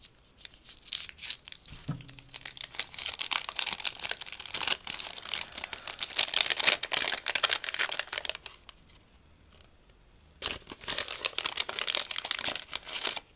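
Wrapping on a small gift packet being crinkled and torn open by hand, in two spells of dense crackling with a pause of about two seconds between them.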